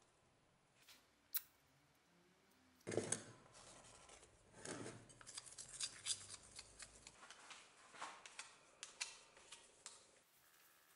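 Faint scraping and clicking of a thin stick against a ceramic bowl as thick two-component paint is stirred, in quick irregular strokes. A sharper knock comes about three seconds in.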